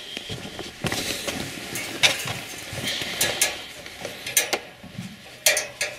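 Metal wire dog crate rattling and clinking as it is handled and puppies are put into it: irregular sharp clicks and clanks.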